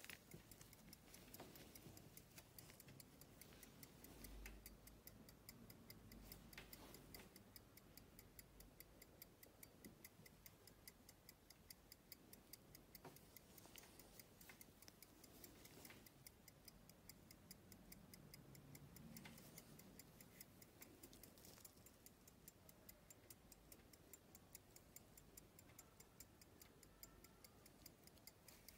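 Faint, fast and even ticking of a Vauchez silver pocket watch movement from around 1800–1810, running with its case open. The watch is running, a sign that it is in working order.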